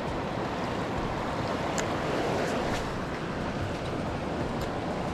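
Fast-flowing river rapids rushing steadily, with a few faint ticks.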